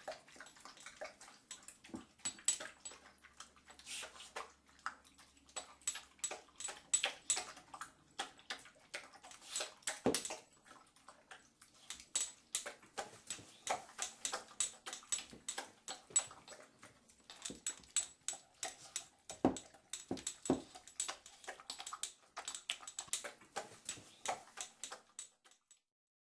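A dog making an irregular run of short, sharp sounds, several a second, with a few louder ones about ten seconds in and again around twenty seconds in.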